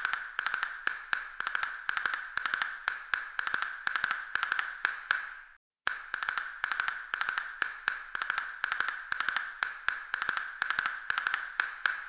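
Castanets clacking in fast rolls: bursts of three or four quick clicks repeat several times a second. The playing stops for a split second near the middle, then starts again.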